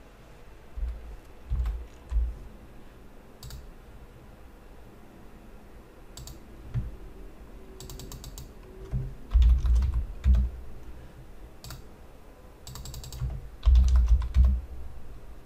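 Computer keyboard being typed on in short, scattered bursts of key clicks with dull thuds under them, as a number is keyed into a field.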